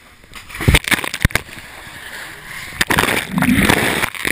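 A person plunging into a tub of ice water: splashing and sloshing, with two sharp thumps about a second in and a dense churning of water in the second half.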